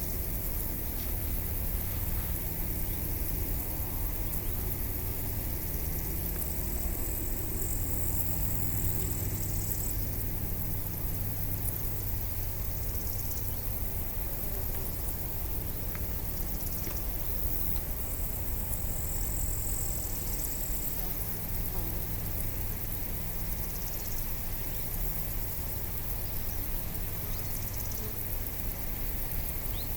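Outdoor nature ambience with a steady low engine-like hum running under it. Faint high-pitched chirping comes in twice, each time for two or three seconds.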